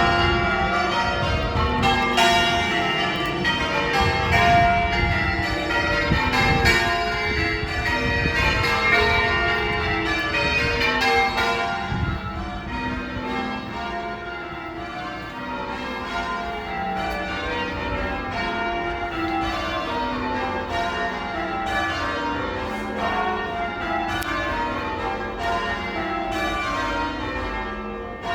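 A ring of English church bells rung full-circle in call changes: the bells strike one after another in steady, evenly spaced rows that repeat continuously, a little quieter from about halfway.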